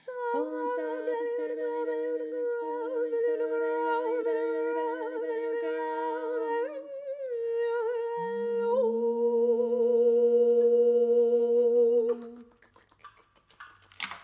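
Voices humming long held notes in harmony, slightly wavering. About seven seconds in, the lower part drops away and a deeper voice comes in a second later. The humming stops near the end.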